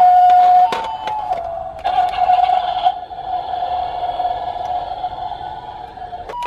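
Toy ambulance's electronic siren, Japanese-style hi-lo "pii-poo" pattern. The alternation breaks off under a few clicks less than a second in and settles into one steady wavering tone for about five seconds.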